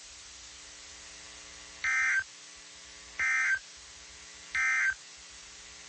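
Emergency Alert System SAME data bursts: three short, identical electronic screeches about a second and a half apart. This is the End of Message code that closes the tornado warning broadcast. A faint steady hum lies under them.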